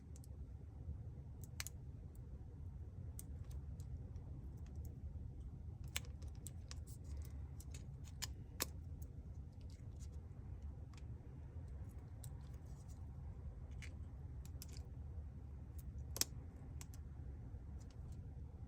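Scattered small clicks and taps of repair tools and parts as components are fitted back into an opened smartphone, a few sharper clicks standing out, over a steady low hum.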